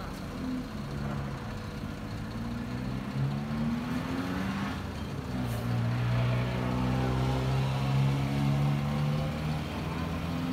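Truck engine running at raised revs to drive a truck-mounted crane's hydraulic pump while the outrigger legs are lowered to level and stabilize the truck. The engine pitch climbs a few seconds in and holds higher and louder from about six seconds on.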